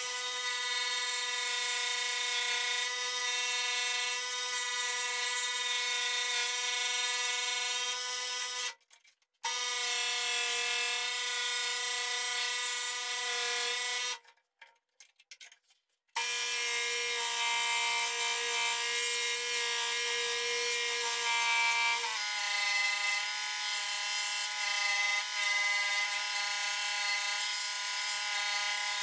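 Electric scroll saw running with a steady whine while its blade cuts a wooden board. The sound drops out twice, briefly around 9 s and again for about two seconds around 14 s. About 22 s in, the pitch steps up slightly.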